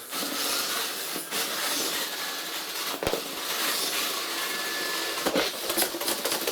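Sichler NX-9644-675 robot vacuum running loud, a steady hiss of its suction fan and drive motors, with two sharp knocks about three and five seconds in.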